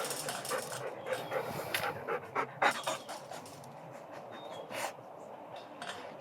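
A dog panting, with a few light clicks along the way.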